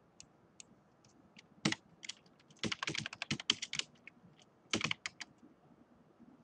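Typing on a computer keyboard: a series of separate key clicks, with a quick run of keystrokes in the middle and a short burst of them near the end.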